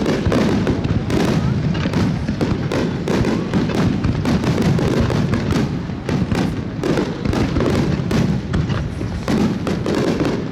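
Aerial fireworks barrage: shells bursting in rapid, continuous succession, many each second, with crackling and a rumbling low boom throughout.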